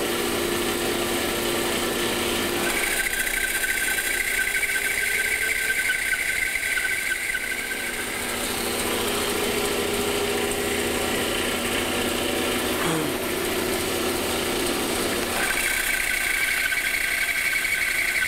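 Bandsaw running while its blade rips lengthwise through a board guided along a fence, making the long side cuts of a notch. A steady high cutting whine eases off in the middle and comes back about three seconds before the end.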